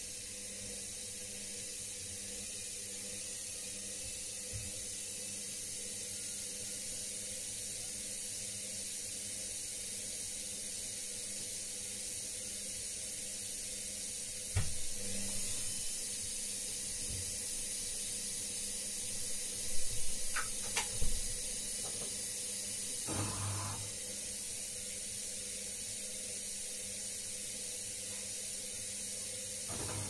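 Front-loading washing machine in its wash cycle: the drum turning and soapy water sloshing through the laundry over a steady motor hum. A few sharp knocks come about halfway through, the loudest ones about two-thirds in.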